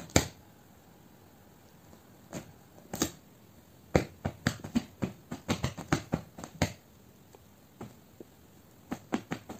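Irregular light clicks and taps, a few at first and then a quick uneven cluster about four to seven seconds in, with a few more near the end.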